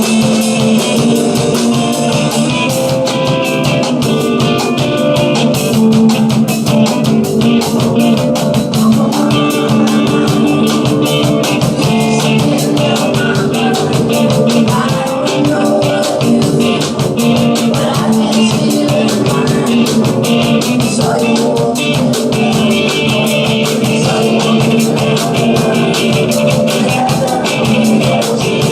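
Rock song played by a band, with guitar and a steady drum beat.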